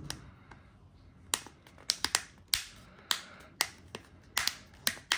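Sharp, irregularly spaced plastic clicks and taps, about ten of them from about a second in, as a red snap-on piece is fitted onto a black Quad Lock MagSafe accessory.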